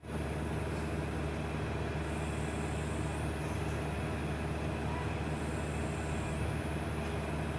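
Steady low hum with an even hiss, like a distant engine or machine running, with no distinct events.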